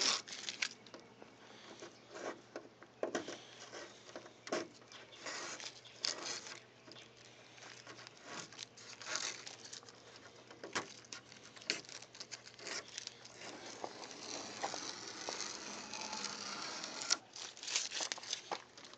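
Blue painter's tape being peeled off a car's grille surround and bumper, giving irregular crackles and short tearing sounds as it comes away, with crinkling as the used tape bunches up in the hand.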